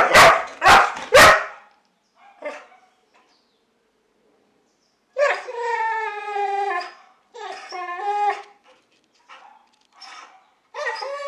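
Boxer dog giving three sharp barks in quick succession and a short one soon after. Then come long, drawn-out pitched vocal calls of a second or two each, with a few shorter ones between them.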